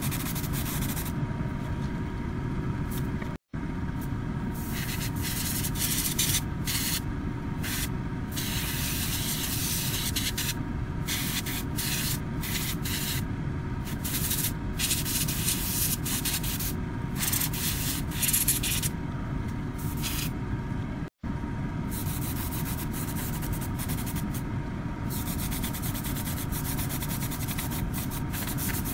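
Airbrush spraying paint in short on-off bursts of high hiss, some a few seconds long, over a steady low hum.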